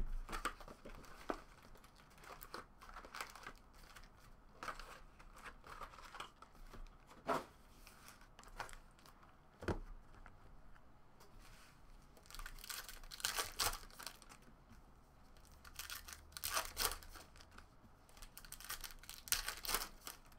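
Plastic shrink-wrap and foil trading-card packs being handled and torn open, crinkling and tearing in irregular bursts, busiest in the second half, with a few sharp knocks.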